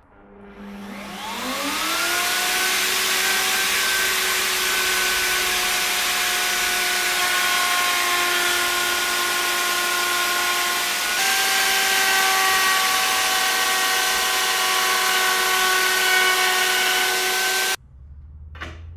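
Ryobi circular saw, mounted under a homemade table saw top, starting up with a rising whine that settles over about two seconds, then running at a steady pitch. It cuts off abruptly near the end, followed by a short click.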